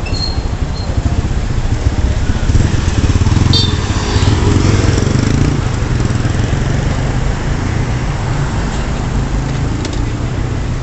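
Street traffic: a steady rumble of engines, with a motorcycle passing close and growing louder about two seconds in, then fading after about six seconds.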